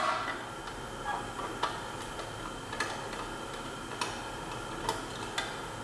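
Flathead screwdriver working a screw out of a machine's front panel: a handful of short, sharp metallic clicks, about one a second, over a faint steady hum.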